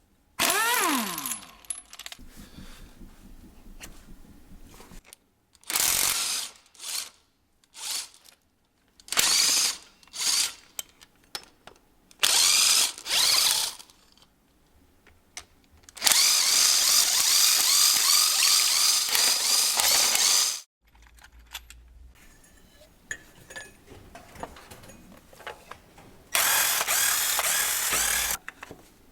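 Ratchet wrench clicking in a series of short bursts, the longest lasting about four seconds, as bolts on a car engine are turned.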